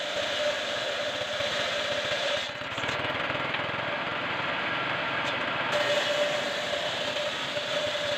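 Homemade table saw (resaw) running, its circular blade ripping a wooden plank lengthwise. A steady whine runs under the cutting noise and drops out for about three seconds midway, then returns.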